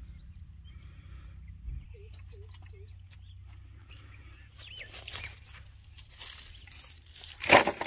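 A bird calling a quick series of about seven short descending chirps, followed by scattered light clicks and rustles and one loud sharp knock near the end.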